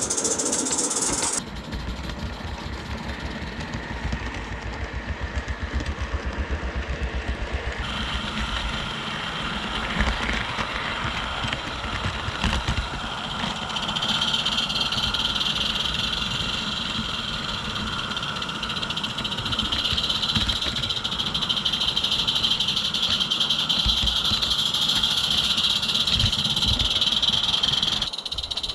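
A garden-scale model goods train running on its track. A fast rhythmic beat is heard for the first several seconds, then a steadier running sound with a high, steady whine that grows stronger from about halfway through.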